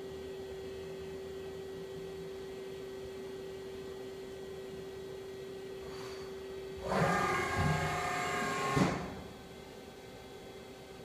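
Daewoo Puma 12L-B CNC lathe with a steady hum, then about two-thirds of the way in its turret slide moves at rapid traverse for about two seconds, a whirring, whining servo-drive sound that ends in a sharp knock as the slide stops.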